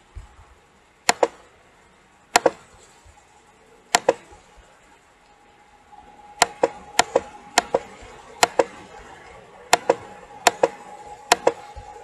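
Computer mouse button clicking, each click a sharp double tick of press and release. About ten clicks, a few seconds apart at first, then about one a second from roughly six seconds in, with a faint steady hum under the later clicks.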